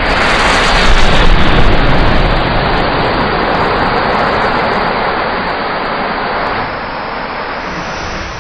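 Thousands of match heads in a matchstick-built cannon model flaring up almost at once: a loud rushing whoosh of fire that builds in the first second and then slowly dies down to a steady burning rush.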